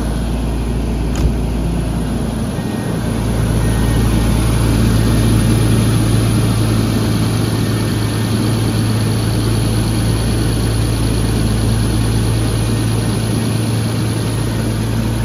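1994 Jaguar XJ12's 6.0-litre V12 idling steadily and smooth as butter, its exhaust manifold-to-collector donut gaskets freshly replaced. A single sharp click sounds about a second in.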